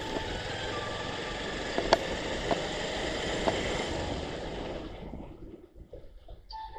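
Wind rushing over the microphone with road noise from a moving motorcycle, with a few faint clicks; the rush drops away sharply after about five seconds.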